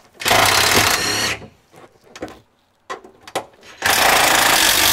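Cordless power driver running fasteners in, in two runs of about a second each, the first shortly after the start and the second near the end, with small handling clicks between.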